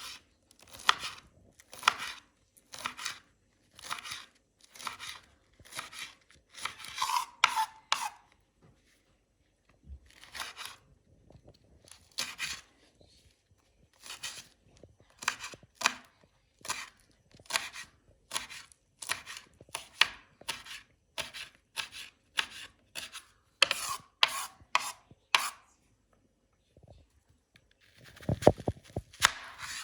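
Knife chopping on a cutting board: runs of short crisp strokes, about two a second, with brief pauses between runs. A louder scraping rustle comes near the end.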